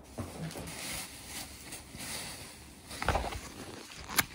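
Handling noise and rustling as the phone filming is moved about, with a dull thud about three seconds in and a sharp tap just after four seconds.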